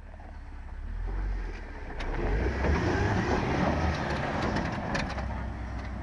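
Jeep Wrangler engine pulling at low speed under load as it crawls over rocks, with its tyres grinding on rock and dirt. The noise builds about two seconds in and eases near the end, with two sharp knocks, about two and five seconds in.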